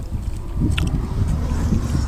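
Wind buffeting the microphone: a steady low rumbling rush, with one faint click a little under a second in.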